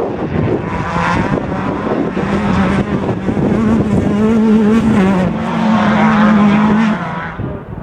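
Class 10 off-road race car's engine running hard at high revs, its pitch wavering slightly up and down; the engine sound stops abruptly about seven seconds in.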